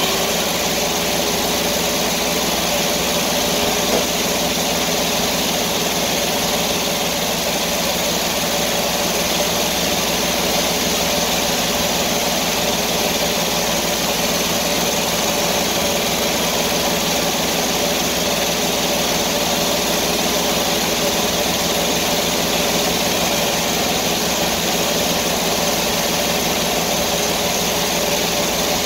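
Sawmill's engine running steadily at an even speed, with no change in pitch or load.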